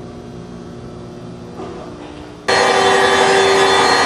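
Low background hum, then about two and a half seconds in the Load King VB-6036 WL vertical baler's 10 horsepower electric motor and hydraulic power pack cut in suddenly and run loud and steady with a strong steady tone, driving the baler's cycle.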